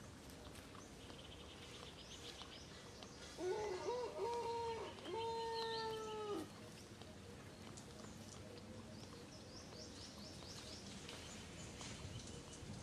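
Macaque giving tonal coo calls: a few short notes in quick succession, then one longer call that falls in pitch at the end. Faint bird chirps in the background.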